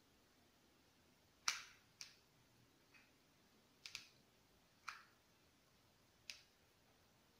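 Hot glue gun handled against a granite countertop while gluing a fabric edge: about six short, sharp clicks and knocks, the first the loudest, with a quick double click near the middle.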